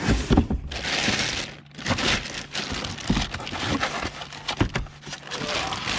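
Packaging being handled: crinkling and rustling with several sharp knocks, as a cardboard shipping box and its packing material are opened and moved about.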